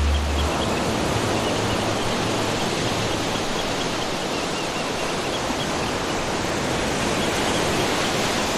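Steady rushing water noise, an even wash with no clear surges, with a few faint high chirps in the first few seconds.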